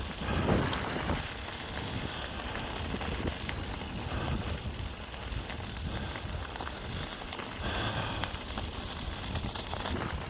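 Mountain bike riding over a dirt trail: tyres rolling and small rattles and clicks from the bike, with wind rumbling on the microphone.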